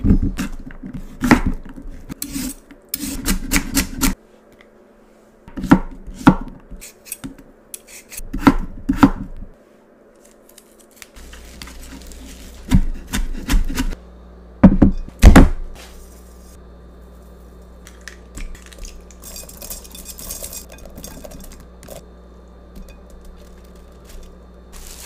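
A chef's knife cutting a green bell pepper on a wooden cutting board: sharp knocks of the blade against the board come in short clusters, then give way to quieter handling sounds in the second half.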